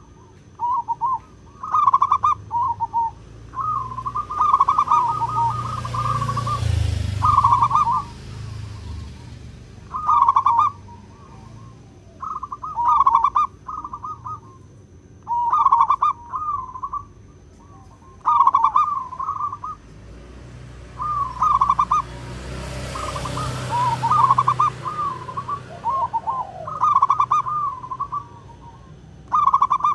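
Zebra dove (perkutut) singing: short rolling, rapidly pulsed cooing phrases repeated every two to three seconds. A low rumbling noise swells and fades twice beneath the song.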